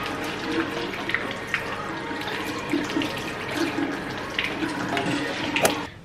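Water running from the tap of a salon shampoo basin as hair is washed: a steady rush with small splashes and clicks. It cuts off suddenly near the end.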